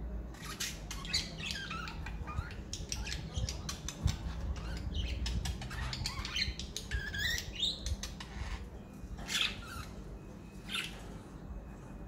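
Pet budgerigars chirping and chattering: a quick run of short high chirps and squawks that thins to a few single calls near the end, with a light knock about four seconds in.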